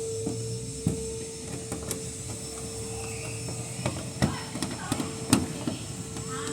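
A steady electric hum with scattered light clicks and knocks, the sharpest about five seconds in.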